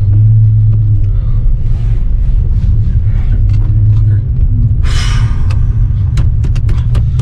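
Car driving off, heard from inside the cabin: a loud, steady low rumble of engine and road. About five seconds in there is a brief hiss, and a run of sharp ticks follows near the end.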